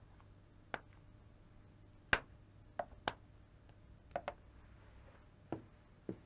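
A string of small, sharp clicks and taps, about eight of them, the loudest about two seconds in: small ring boxes being opened and handled.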